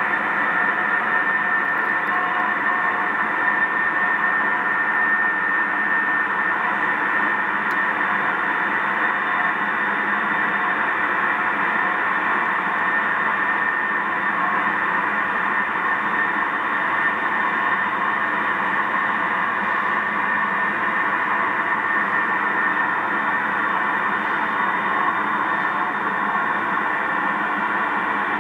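A steady droning hum of several held tones over a hiss, unchanging throughout, which the recorder hears as a strange sound coming from the night sky.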